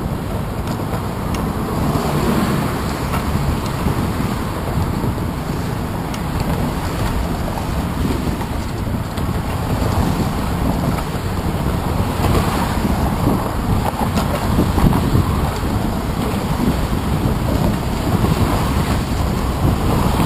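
Steady wind rumble on a handlebar-mounted GoPro Hero 2 microphone while riding a bicycle, mixed with car traffic on the bridge roadway alongside.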